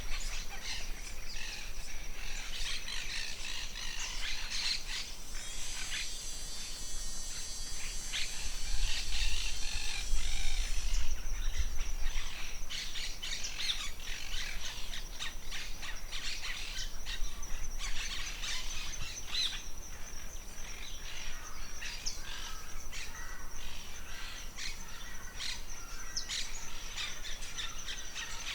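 Forest birds chirping and calling over a steady high-pitched whine, with a stretch of dense high hiss and a low rumble near the middle.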